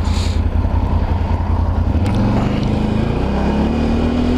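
Can-Am Renegade 1000 ATV's V-twin engine running under way, then accelerating with a rising note from about three seconds in.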